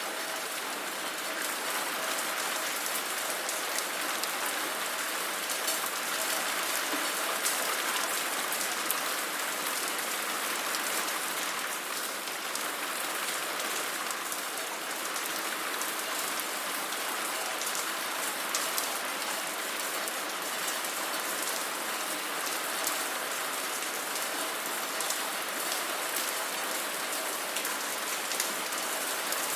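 Steady rain falling, an even hiss of many drops with fine patters of individual drops hitting a surface.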